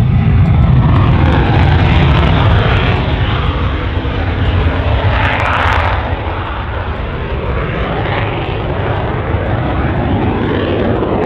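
Lockheed U-2's single turbofan jet engine at climb power as the aircraft lifts off from a touch-and-go and climbs away. A loud, steady jet rush with sweeping, shifting tones, easing slightly after about five seconds.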